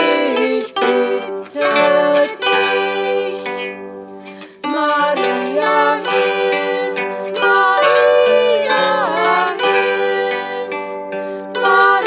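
Zither played with plucked melody notes over ringing chords, as an instrumental interlude of a hymn tune; the playing thins out and pauses briefly about four seconds in, then picks up again.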